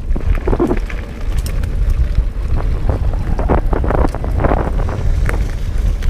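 Wind buffeting the microphone while a Specialized Rockhopper Comp 29 mountain bike rides fast over a dirt trail: a steady low rumble with frequent rattles and clicks from the bike jolting over rough ground.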